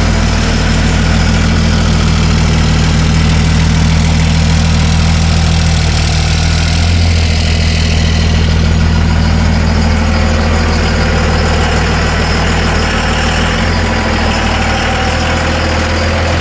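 Cummins diesel engine of a dual-rear-wheel pickup truck idling steadily.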